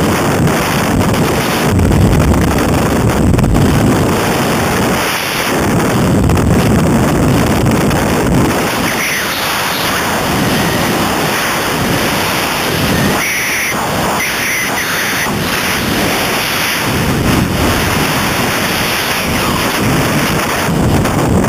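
Freefall wind blasting the skydiver's camera microphone: a loud, rumbling rush that swells and eases as the body turns in the airflow.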